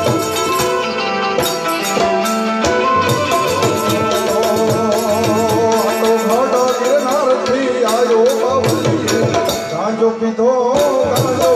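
Live Indian devotional music: harmonium held notes with hand-drum strokes, and a man's voice starts singing a wavering, ornamented line about halfway through.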